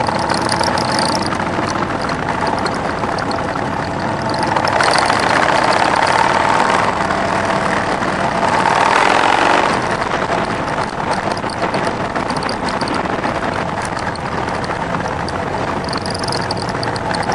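Motorcycle engine running on the move, heard from on the bike with wind rushing over the microphone and other motorcycles around it; it grows louder for a few seconds in the middle, then settles back.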